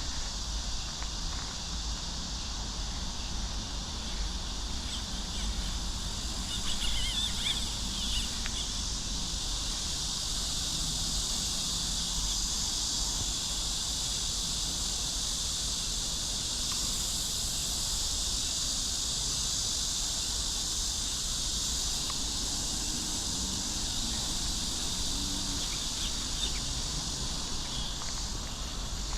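Steady high-pitched chorus of insects, crickets or cicadas, over a constant low rumble, with a few brief bird-like chirps about a quarter of the way in.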